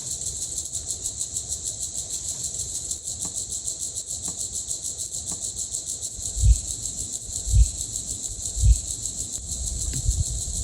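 Three dull, low thumps about a second apart, over a steady, fast-pulsing high-pitched drone.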